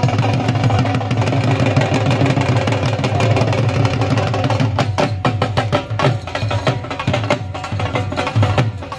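Dhol drum being beaten in a steady, fast rhythm: deep bass thumps under sharp stick strokes.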